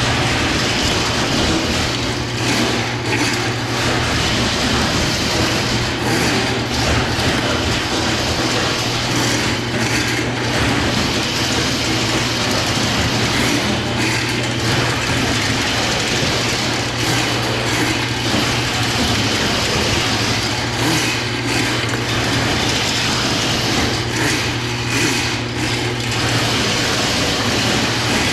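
Electric drain-cleaning machine running steadily with its cable turning in the clogged floor drain: an even mechanical rush over a constant low motor hum.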